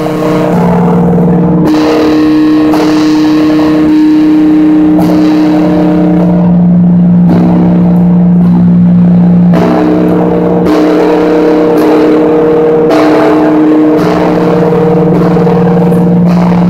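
Large Orthodox church bell ringing, struck about once a second, each stroke ringing on in a long steady hum into the next.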